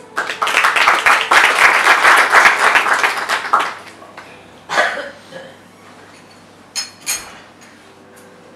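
Small audience applauding for about three and a half seconds, the clapping fading out, then a few isolated short noises.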